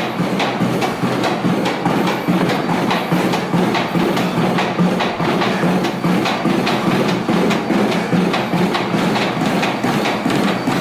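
Running footfalls thudding on a treadmill belt in a steady fast rhythm, with music.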